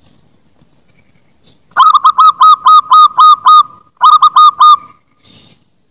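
Zebra dove (perkutut) song: starting about two seconds in, a quick run of about eight short, clipped cooing notes, a brief pause, then four more.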